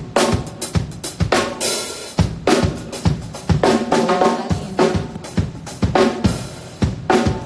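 Drum kit played over the PA at a sound check: kick drum thumps, snare hits and cymbals in a steady run, with a cymbal crash about two seconds in.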